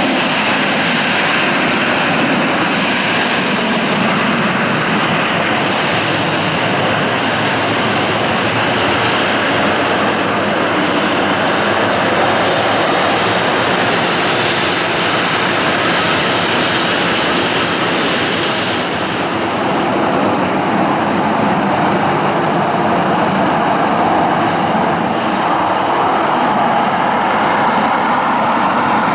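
Boeing 737-800's CFM56-7B turbofan engines running at taxi power as the jet taxis, a steady jet whine and rush.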